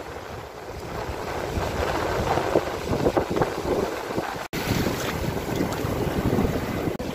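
Wind buffeting the microphone over the wash of small waves breaking and running up a sandy beach, with a momentary dropout about four and a half seconds in.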